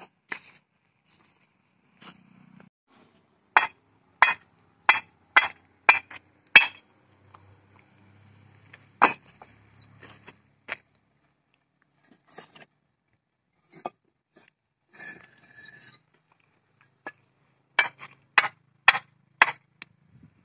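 Fired red clay bricks knocked together, giving sharp ringing clinks: a quick run of about six strikes, a single one a few seconds later, then four more near the end. The clear ring is taken as the sign of good, well-fired bricks.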